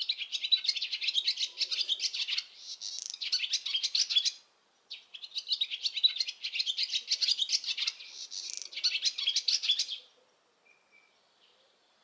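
Male swallow singing from a perch: two long bouts of rapid, high twittering warble, the second stopping about ten seconds in. It is the male's song during nest building, sung while his mate builds.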